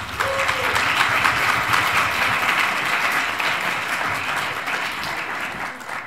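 Audience applauding, dense clapping that gradually fades toward the end.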